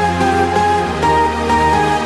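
Background music: held notes and a melody changing about every half second over a sustained bass line.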